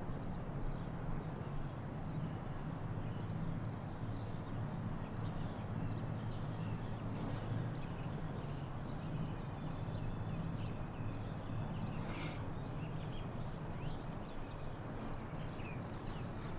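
Outdoor park ambience: small birds chirping over a low, steady hum.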